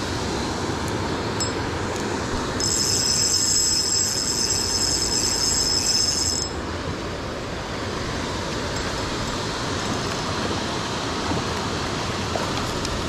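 Steady rush of flowing stream water close to the surface. A thin, high-pitched whine joins in from about two and a half seconds in and stops after about four seconds.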